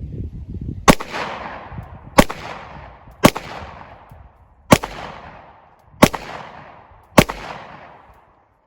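Six shots from a Glock 30 pistol firing .45 ACP full metal jacket rounds, spaced a second or so apart, each followed by a long echo dying away.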